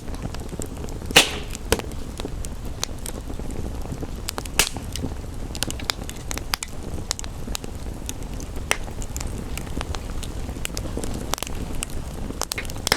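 Wood fire crackling, with frequent sharp snaps and two louder pops, one about a second in and another between four and five seconds in, over a steady rushing background of rain.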